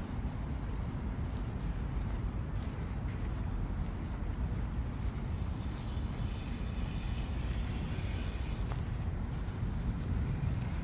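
Steady low outdoor rumble. From about five seconds in, a high hiss joins it and stops suddenly a few seconds later.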